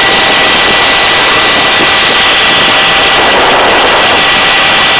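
Hovering helicopter: loud, steady turbine and rotor noise with a thin, steady high whine.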